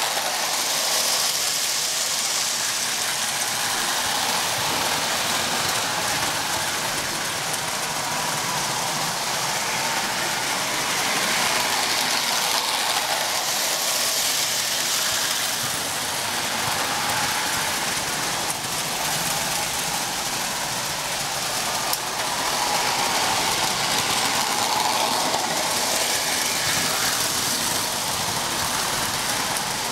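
O gauge toy trains running on three-rail tinplate tubular track: a steady rattling rumble of wheels and electric motors that swells as the cars pass close.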